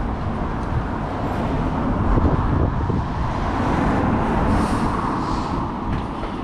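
Steady low rumble of motor-vehicle noise.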